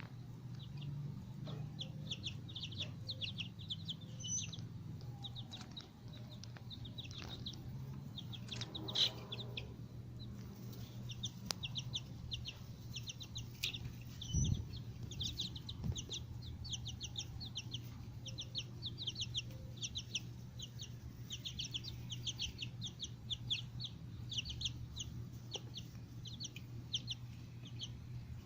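Young Black Copper Marans chickens peeping and chirping continuously in many short, high peeps, with one louder call about nine seconds in. A steady low hum runs underneath, and there is a brief knock about halfway through.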